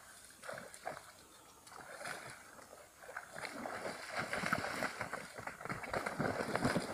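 Faint, irregular splashing and sloshing of steps through shallow floodwater and mud, growing denser about three seconds in.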